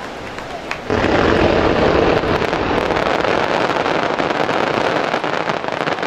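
Fireworks display: a sudden loud barrage starts about a second in, a dense run of many small bursts and crackles packed too close to count, holding for about five seconds.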